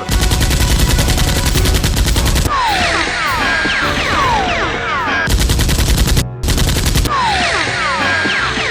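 Rapid automatic gunfire sound effects: a long burst at the start and another about five seconds in. Between the bursts come repeated short, falling whistling tones.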